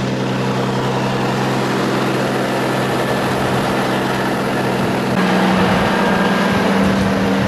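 Heavy diesel truck engine idling steadily close by; about five seconds in its pitch steps up slightly and it gets a little louder.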